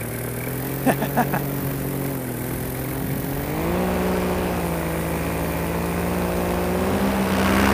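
Paramotor engine and propeller running in flight at reduced throttle, then throttled up about four seconds in: the pitch rises and holds steady, a little louder. A few brief clicks about a second in.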